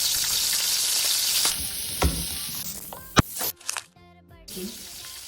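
Food sizzling and frying in a hot pan, loud at first and dying down after about two seconds, with a couple of sharp knocks. Music comes in over it after about three and a half seconds.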